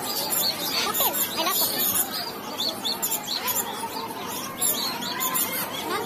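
Many caged birds chirping and calling at once, with short, sharp high chirps coming in quick succession.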